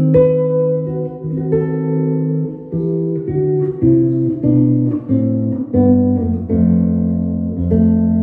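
Godin ACS nylon-string electro-acoustic guitar played through a Roland GR-55 guitar synthesizer: a slow melodic line of about ten plucked notes and chords, each ringing on smoothly into the next, the last one held near the end.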